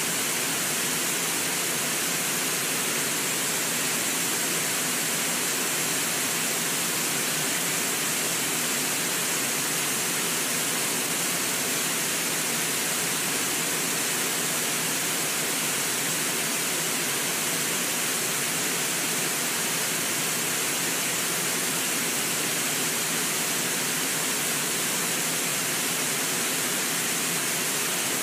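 River water pouring over a low waterfall: a steady, unbroken rushing hiss.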